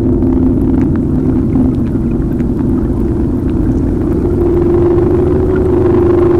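Ambient drone soundscape: a low, steady rumble under a couple of sustained held tones, with scattered faint crackles; the higher held tone grows stronger about two-thirds of the way through.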